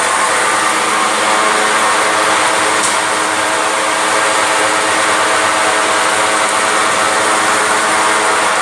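Mini blast furnace's air blower running steadily: a constant machine drone, several even humming tones under a hiss.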